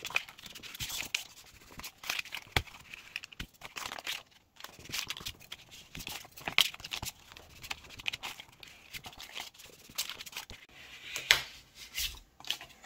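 Paper being folded and creased by hand along an aluminium triangle straightedge: irregular rustling, scraping and crackling of the paper, with short sharp clicks as the paper and triangle are pressed against the table.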